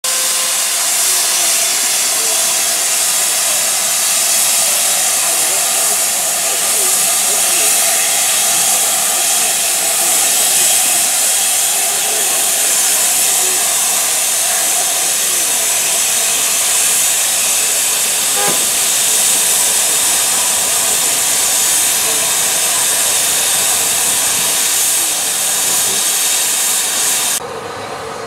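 Loud, steady hiss of steam from a rebuilt Bulleid West Country class steam locomotive, running unbroken with no exhaust beat and cutting off abruptly near the end.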